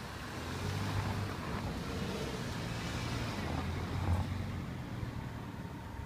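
A car passing close by at low speed: a steady low engine hum with tyre noise that swells and then fades away.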